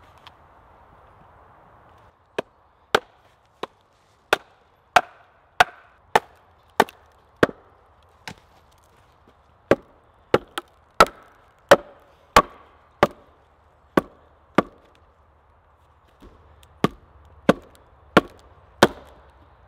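An axe splitting a short log section by hand: a long run of sharp wooden knocks, about one and a half a second, with a couple of short pauses.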